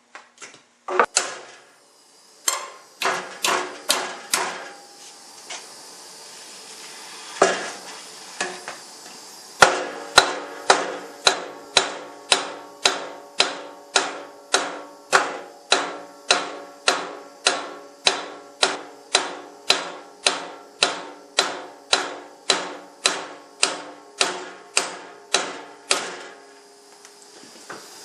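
Hammer blows on a piece of metal bar stock, flaring it out to form a new bracket. A few scattered blows come first, then a steady run of ringing metal-on-metal strikes at about two a second for some fifteen seconds.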